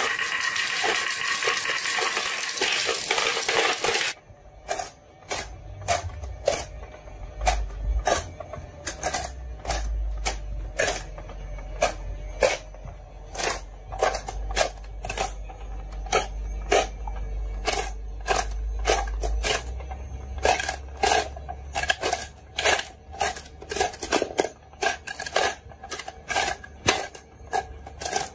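Glass marbles: a dense rolling rush that cuts off suddenly about four seconds in, then many irregular sharp clicks and clacks as the marbles knock against each other and the plastic game board and are handled. A low hum runs under the clicks through much of the middle.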